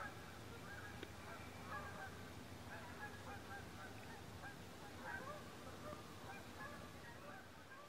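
Faint, distant birds calling: many short calls overlapping throughout, over a steady low background.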